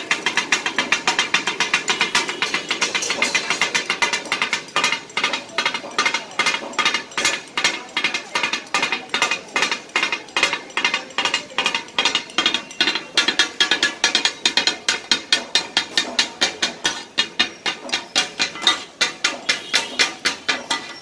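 Two steel blades chopping offal on a large flat metal griddle: a fast, even run of metallic clacks, about three to four strikes a second. This clatter of blades on the griddle is the sound that gives kata-kat (tak-a-tak) its name.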